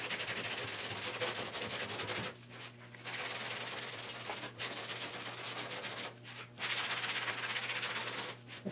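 Hand sanding of cured body filler with a long sanding block and 80-grit paper: a steady scratchy rasp of back-and-forth strokes in three stretches, broken by two short pauses about two and six seconds in.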